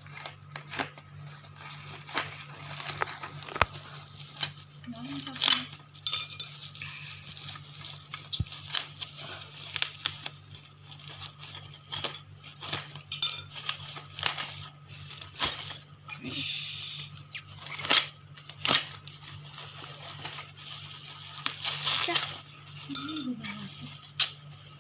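Packaging being unwrapped: plastic or paper crinkling and tearing, with many irregular clicks and light knocks, over a steady low hum.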